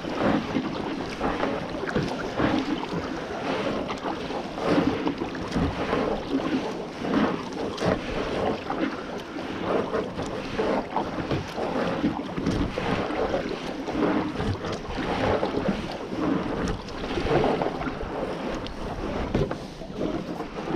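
Kayak paddle strokes dipping and splashing in calm water, with repeated surges of splashing and water lapping against the plastic sit-in kayak's hull, and some wind rumbling on the action camera's microphone.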